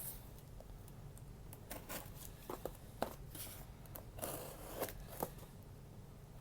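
A small mail parcel being opened by hand: scattered light clicks and short rustles of packaging, with a longer rustle a little past the middle.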